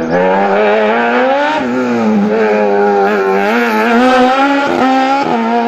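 Sport prototype race car's engine revving hard as the car weaves through a cone slalom, its pitch rising and falling over and over with a few quick dips as the throttle comes off and goes back on.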